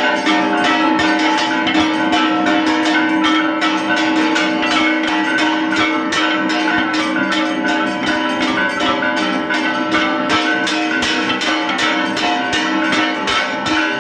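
Temple bells rung continuously and rapidly during Hindu aarti, the strikes overlapping into a steady ringing clangour.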